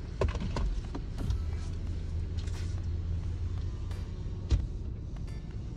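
Steady low rumble of a car heard from inside the cabin, with a few light clicks and knocks, the sharpest about four and a half seconds in.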